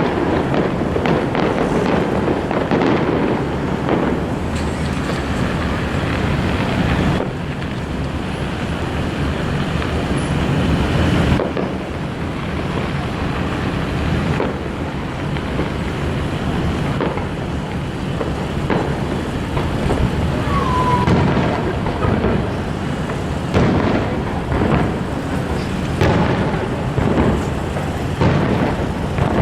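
Aerial fireworks going off in quick succession: a continuous rumble of overlapping booms and crackles, with a few sharper bangs near the end.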